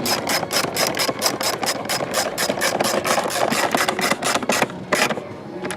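Hand ratchet wrench on a long extension clicking rapidly and evenly, about six clicks a second, as it is swung back and forth to run in a screw, stopping near the end.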